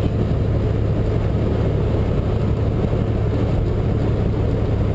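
Semi truck cruising at highway speed, heard from inside the cab: a steady low diesel engine hum with road and tyre noise over it.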